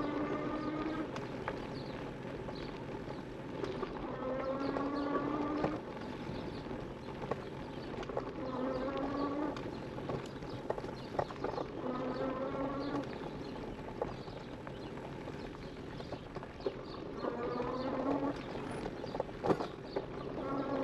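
E-bike riding over a dirt trail: a steady rumble of tyre and frame noise with scattered sharp rattles and knocks. A short, slightly rising whine from the motor comes back about every four seconds, each one lasting about a second.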